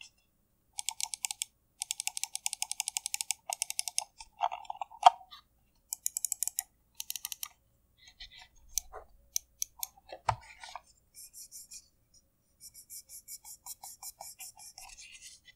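Mionix Castor gaming mouse buttons, Omron mechanical switches, clicked rapidly in bursts of several sharp clicks a second. A single dull knock comes about ten seconds in, and a fainter run of quick clicks follows near the end.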